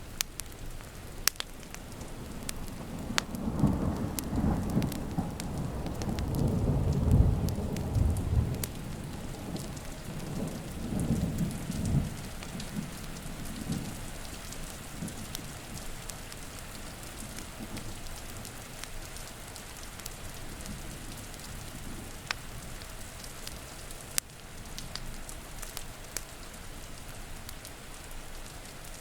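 Thunder rumbling low from about three seconds in, swelling to its loudest midway and dying away by about twelve seconds, over steady rain. Scattered sharp clicks run throughout.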